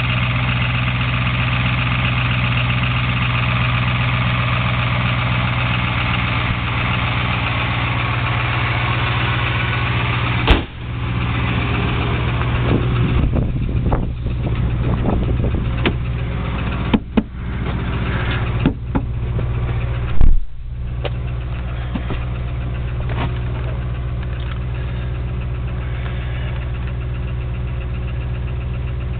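Ford F-250 pickup engine idling steadily just after being jump-started from a dead battery. Several clunks and knocks break in between about ten and twenty seconds in, the loudest a heavy thump about twenty seconds in.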